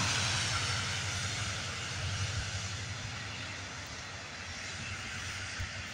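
Distant freight train running past, a steady low rumble with a hiss over it, slowly fading.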